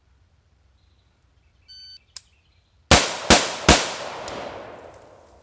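A shot timer's short start beep, then about a second later three quick rifle shots from an AR-15 carbine, under half a second apart, their echo fading away slowly.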